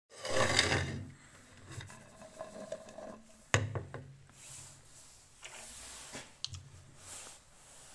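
Handling sounds of a plate being set on a table: a rustling scrape at the start, a sharp knock of the plate meeting the tabletop about three and a half seconds in, then faint rubbing and a few small clicks.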